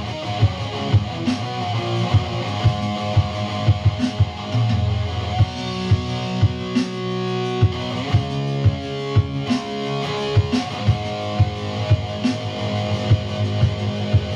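Background rock music: guitar over a steady drum beat.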